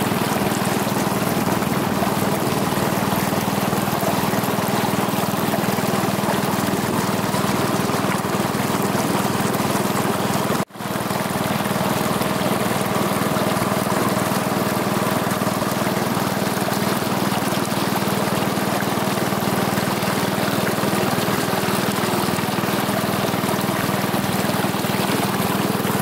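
A small wooden boat's motor running steadily with a constant low hum, mixed with water washing along the hull. The sound cuts out for an instant about ten seconds in.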